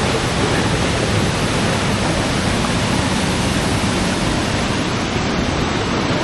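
Waterfall's falling water: a steady, unbroken rush.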